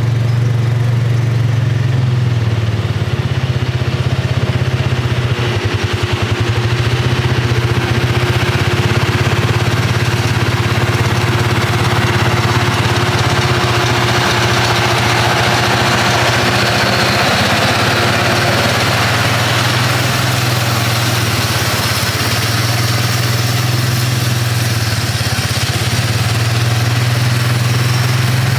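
John Deere 6150 tractor's diesel engine running steadily, heard from inside the cab as a deep, even hum.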